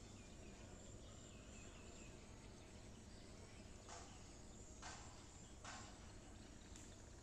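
Faint outdoor ambience: a steady high insect buzz, with a few small bird chirps in the first couple of seconds. In the second half come four short knocks about a second apart, over a low even rumble.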